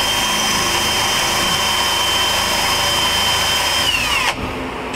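Power drill running at a steady speed, its bit boring up through a fiberglass truck canopy roof, with a steady high motor whine. The motor winds down and stops about four seconds in.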